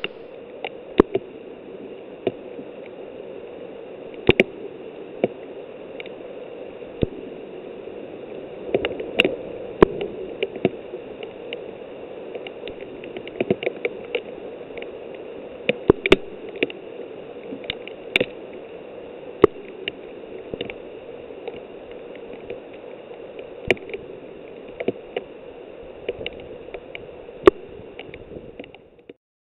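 Hailstorm in woodland: a steady hiss of hail and rain falling through leaves, with many irregular sharp clicks of hailstones striking close by. It cuts off just before the end.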